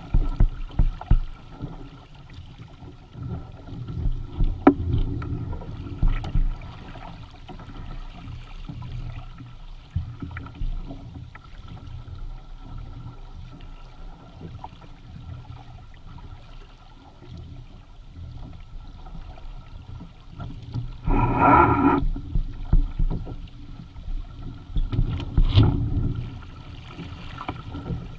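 Water slapping and splashing against the hulls and amas of a Hobie Tandem Island sailing kayak under way in choppy water, over a steady low rumble of rushing water and wind. Two louder splashes come late on, the first lasting about a second.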